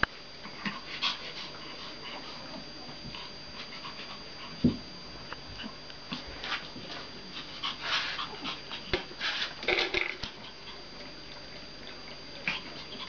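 A puppy and an adult dog playing on a tile floor: scattered soft dog whimpers and snuffles among clicks and scuffles, busiest about eight to ten seconds in, with one louder thump about four and a half seconds in.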